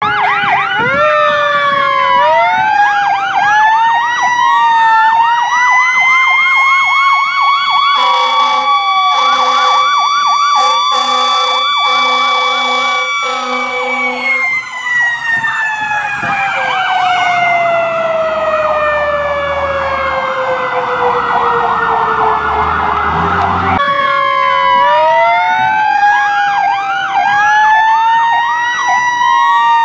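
Fire engine sirens wailing and yelping together as the engine approaches. A run of repeated air horn blasts comes from about eight to fourteen seconds in. Then one siren tone winds slowly down, under a fast yelp, until the wailing starts up again near the end.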